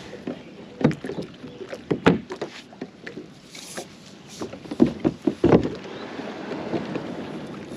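A kayak being paddled away from a grassy bank, the paddle knocking sharply against the plastic hull half a dozen times between strokes in the water.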